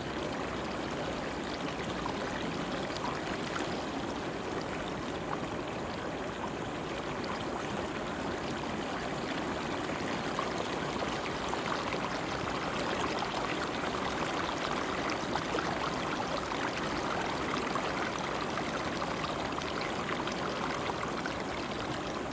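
Muddy water swirling in a whirlpool and draining down a hole: a steady rushing trickle dotted with small bubbling pops, a little louder in the second half.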